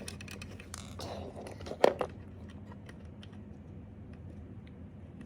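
Small plastic toy-brick pieces being handled and fitted together: scattered light clicks and a short rustle, with one sharp click just under two seconds in.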